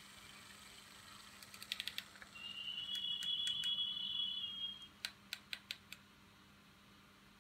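An ET420 electric multiple unit's sound decoder playing through the speaker of a Märklin Ae 6/6 model locomotive, the wrong sound set for this engine: a quick run of clicks, then a high steady two-note tone for about two and a half seconds, then another run of about five evenly spaced clicks.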